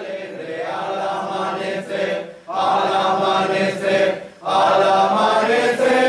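A group of people singing a religious song together in unison, without accompaniment, in long phrases broken by brief pauses about two and a half and four and a half seconds in.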